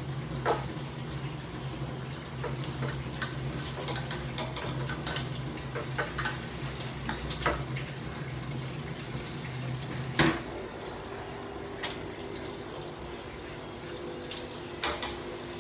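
Tomato-and-artichoke sauce simmering in a stainless pan, bubbling with irregular sharp pops, over a steady electrical hum from the stove. The hum shifts to a higher tone at a click about ten seconds in.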